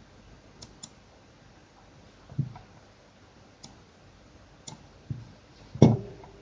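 Computer mouse clicking: a handful of sharp, separate clicks, with three dull thumps among them, the last and loudest near the end.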